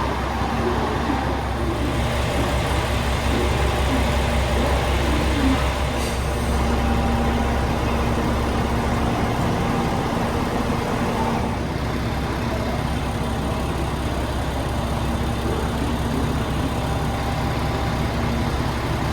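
Diesel train engines idling, a steady low hum with no marked rise or fall.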